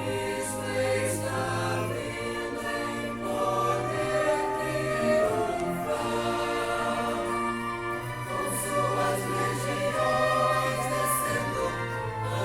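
A choir singing a sacred song in sustained chords over a long-held low note.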